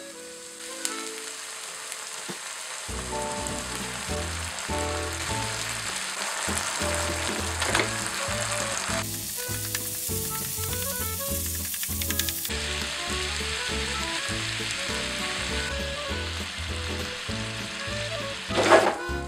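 Onions and minced meat sizzling in a hot frying pan, with a brief louder surge of sizzling near the end as sweetcorn is poured in. Background music with a steady bass line plays under the sizzling from about three seconds in.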